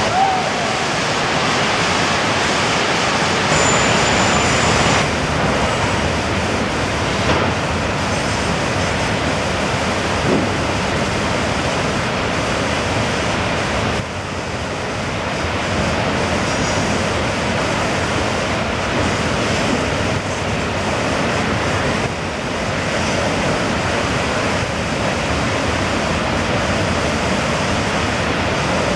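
Whitewater rapids of the Kicking Horse River rushing, a steady, even noise of fast turbulent water.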